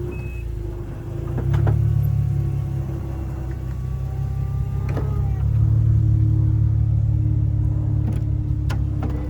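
Infiniti G37 convertible's retractable hardtop closing: a motor hum that swells about a second and a half in, over the running car, with a few clicks and clunks from the roof mechanism. The top fails to close all the way.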